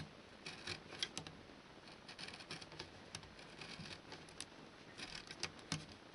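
Craft knife blade cutting through milk-carton card: a faint, irregular run of small scratching clicks as the blade works around the disc.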